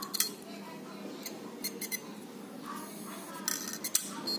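Scattered light metallic clicks and clinks from an opened hard disk drive and its parts being handled, over a steady low hum.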